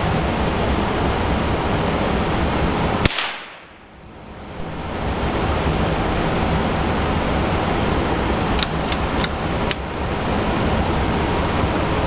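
Gunshots over a steady rushing noise: one sharp shot about three seconds in, then a quick string of four lighter shots about a third to half a second apart near the end.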